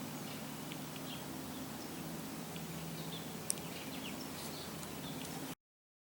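Songbirds chirping faintly and sporadically over steady outdoor background noise, with a single sharp click about three and a half seconds in. The sound cuts off abruptly to silence about five and a half seconds in.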